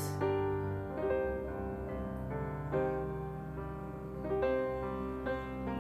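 Background music with slow, held notes and a new note or chord every half second to a second.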